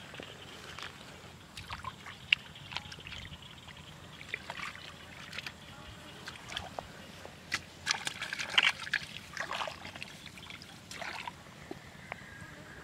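Hands working in the shallow muddy water of a rice paddy, with irregular squelches, sloshes and small splashes, busiest about eight seconds in.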